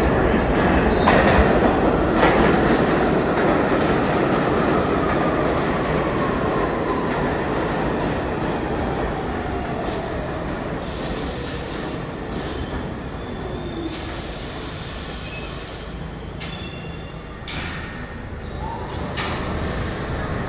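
R62 subway train on the 3 line pulling into the station on the express track and braking to a stop. Its wheels rumble and squeal on the rails, and a whine falls steadily in pitch as the train slows. Brief high squeals come about midway and again near the end, as it halts.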